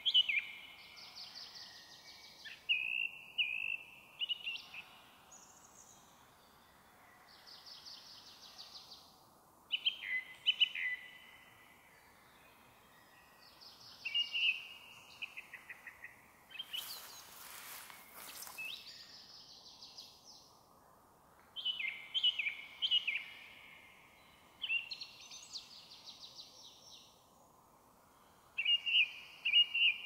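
Song thrush singing: short phrases of quickly repeated notes, one phrase every few seconds, with fainter songs of other small birds between them. About halfway through there is a brief burst of noise lasting a second or so.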